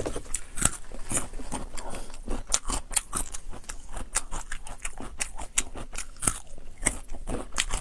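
Close-miked biting and chewing of a raw young baby corn cob: many short, crisp crunches in quick irregular succession.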